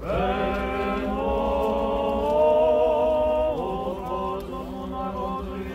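Orthodox liturgical chant: voices sing long held notes, shifting to a new note about three and a half seconds in.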